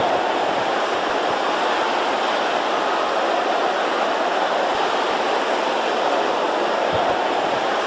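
A large congregation all praying aloud at once, many voices blending into a loud, steady roar of indistinct shouting.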